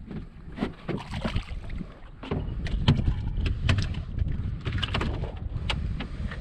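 Wind buffeting the microphone, with many sharp knocks and splashes as a hooked fish is lifted from the water and flops on the skiff's deck; the knocks come thickest in the second half.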